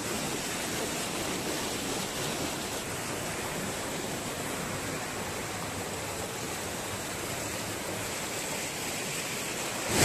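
Mountain stream running fast over boulders: a steady rush of water with no change in level.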